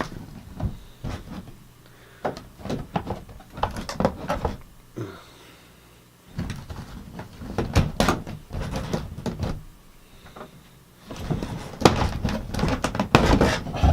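Toy packaging being handled and pulled open: an irregular string of short scrapes, rustles and knocks of cardboard and plastic.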